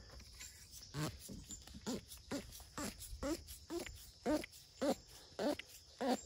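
An animal calling in a quick series, about two short calls a second, growing louder toward the end.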